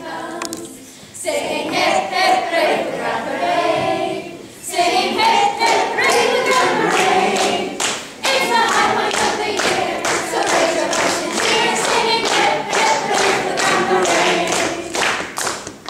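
A stage cast of children and adults singing a song together as a group. About five seconds in, hands start clapping along in a steady beat, roughly twice a second.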